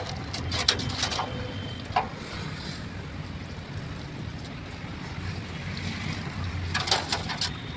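Steady low background rumble with scattered light clicks and taps of parts being handled: a few near the start, one about two seconds in, and a cluster near the end.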